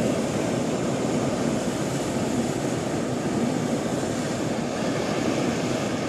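Hot-air balloon's propane burner firing in one long, loud, steady burn.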